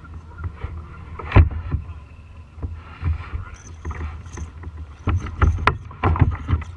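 Plastic kayak on the water: a steady low wind-and-water rumble at the hull, with sharp knocks and bumps of gear and movement against the hull, one loud knock about a second and a half in and a cluster near the end.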